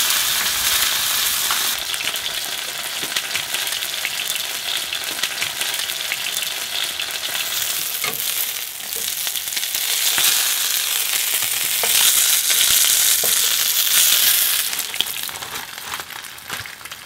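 Starch-coated fluke pieces shallow-frying in hot oil in a frying pan, a steady sizzle with scattered small crackles as the fish is crisped over medium-high heat. The sizzle dies down near the end.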